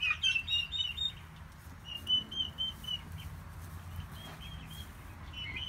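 Young poultry (turkey poults and silkie chicks) peeping: short high chirps in quick runs of about five, repeating several times.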